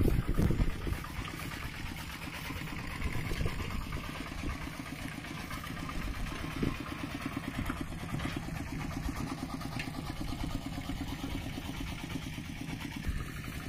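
Two-wheel walking tractor's single-cylinder diesel engine running steadily with a rapid chugging beat as it pulls a loaded trailer, a little louder in the first second.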